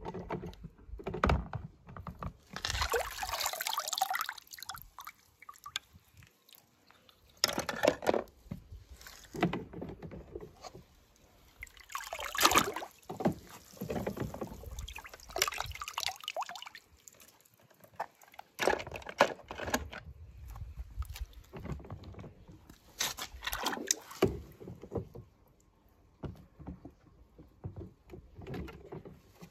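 Water splashing and sloshing as a hand moves through a shallow tub of water, in irregular bursts with short lulls between.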